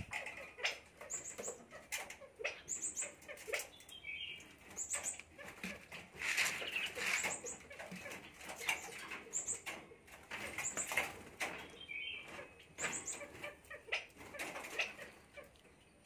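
Common myna flapping its wings and shuffling on a concrete ledge, with short high-pitched double notes every second or two and a few harsh rattling calls.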